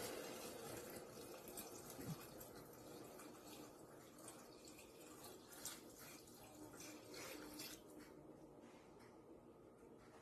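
Faint sizzling and bubbling of water just added to the hot stainless steel pressure cooker pot, dying away, with a few small clicks.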